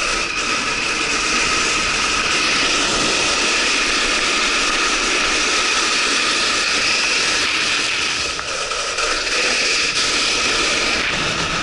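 Steady, loud rushing hiss of sliding fast over icy spring snow while snowkiting, with wind on the microphone. It eases briefly about two thirds of the way through.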